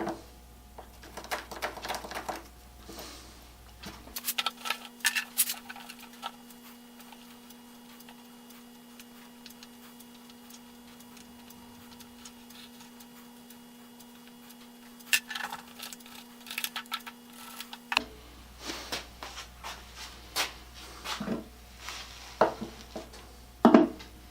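Light clicks, taps and rubbing as metal casters and hardware are handled and set against a wooden tool box base, in scattered clusters with a quieter stretch in the middle. A faint steady hum runs through that middle stretch.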